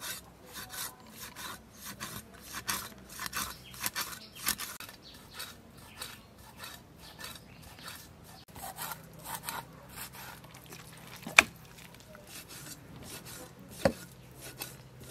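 Cleaver and knife blades scraping and slicing through a whole fish on a wooden chopping block: repeated rasping strokes, with a sharp knock of the blade on the block about eleven seconds in and a smaller knock near the end.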